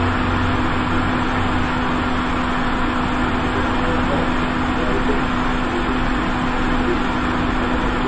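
Quick 861 hot air rework station blowing at airflow 50 while a replacement FPC connector is reflowed onto the board: a steady rushing hiss with a constant low hum that does not change.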